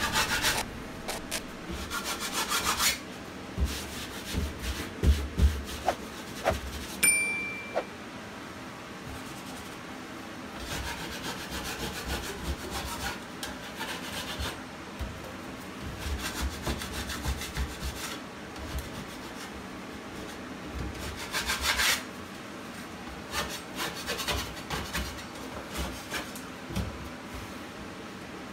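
Wide metal putty knife scraping torn paper facing and loose debris off a drywall wall, in irregular bursts of short strokes with pauses between them.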